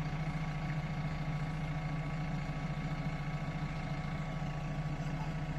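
A machine's engine running steadily at an even speed, a constant low hum.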